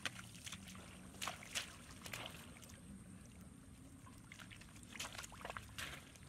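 Short splashes in shallow muddy water as hands grab at a fish in a flooded rice-field puddle: a few quick splashes about a second in and another cluster near the end, with little in between.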